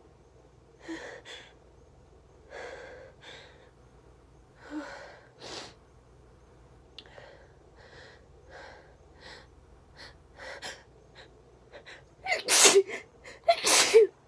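A person building up to a sneeze with a string of short, hitching gasps over about ten seconds, then sneezing loudly twice near the end.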